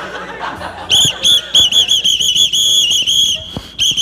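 A whistle blown in a quick run of short, warbling toots, starting about a second in, with one longer held blast in the middle and a brief break near the end.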